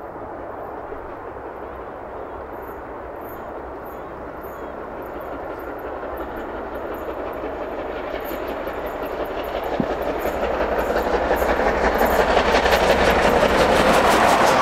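Steam locomotive hauling a train of coaches approaching at speed, growing steadily louder as it nears, with a fast, even rhythmic beat coming through in the second half.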